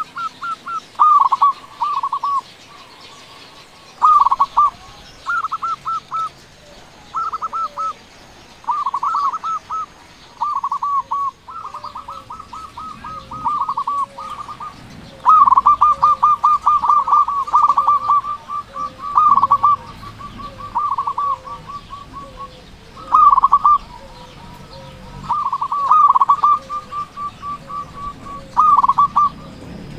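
Zebra dove (perkutut) singing: loud bursts of rapid staccato coos, one phrase every second or two, over and over.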